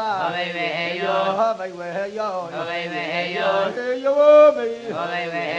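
Chanted vocal music: a voice chanting a flowing melody that glides between notes, with one longer, louder held note about four seconds in.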